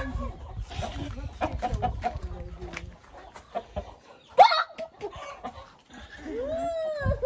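Chickens in a coop clucking and calling, with one sharp loud squawk about four and a half seconds in and a longer call that rises and falls in pitch near the end.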